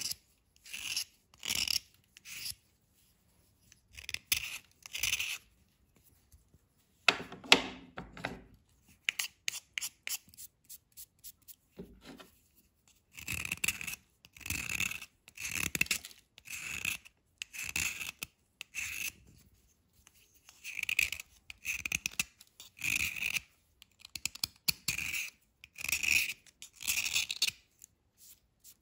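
A metal blade scraping a white chalky bar, dry scraping strokes that shave powder off it, mostly about one a second. The loudest, fuller stroke comes about seven seconds in, followed by a run of quick light scratches.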